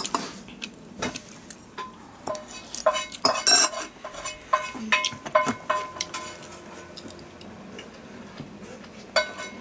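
Metal spoon clinking and scraping against a glass bowl of fried rice: a run of sharp clinks that ring briefly, thinning out after about six seconds.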